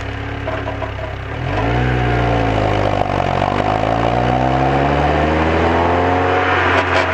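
Lotus Elise S2 engine heard onboard, running at a steady note, then getting louder about a second and a half in as it comes under throttle, with its pitch shifting over the following seconds.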